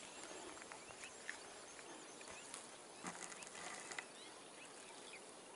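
Faint outdoor ambience: scattered short bird chirps over a low, steady hiss, with a few soft clicks.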